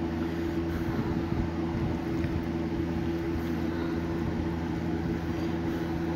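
A steady low mechanical hum of a running household appliance or fan, made of several held tones, with faint irregular soft knocks and scrapes from a spoon mixing a cream cheese and spinach stuffing in a glass bowl.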